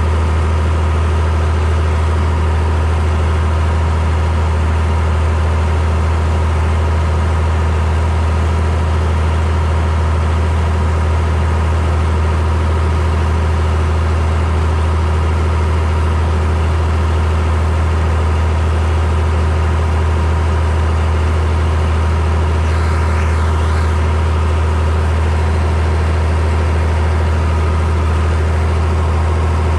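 Oliver 1850 tractor's six-cylinder engine running steadily while pulling a manure spreader across a field. It is heard close up from on top of the hood, with a strong, even low hum.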